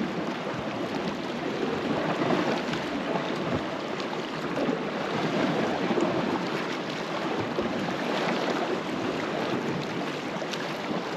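Sea waves washing against a rocky shore, a steady rush of water.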